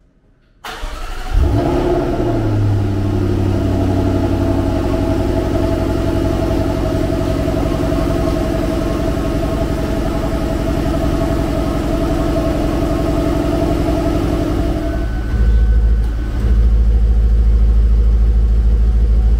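Jaguar F-Pace SVR's 5-litre supercharged V8 starting about a second in, with a brief rise in revs, then settling into a steady idle. Near the end its deep low rumble grows louder.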